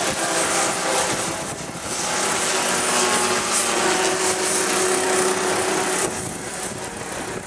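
Radio-controlled scale model of a Bell UH-1 Huey helicopter flying past, its motor and rotor running steadily with a high-pitched whine.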